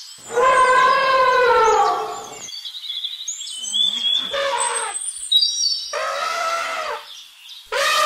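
Elephant trumpeting: a long call starting about half a second in that falls in pitch near its end, a shorter one at about six seconds, and another starting just before the end. High chirping fills the gap between the calls.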